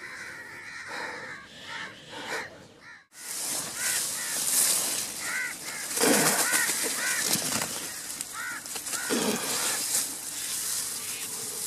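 Crop leaves rustling and brushing against the microphone as someone pushes through a green crop field, starting about three seconds in, loudest from there on. A bird calls several times over it in short cries.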